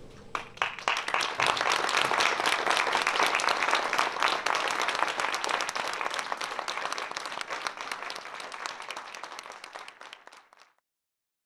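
Theatre audience applauding, a dense clatter of many hands that builds up within the first second, holds, then fades and cuts off suddenly near the end.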